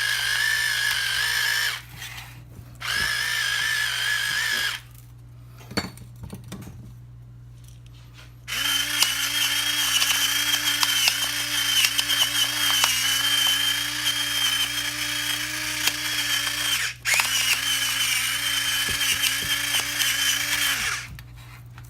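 Electric salt and pepper grinder running in several bursts: two short grinds of a couple of seconds each, a pause, then a long grind of about twelve seconds with one brief stop.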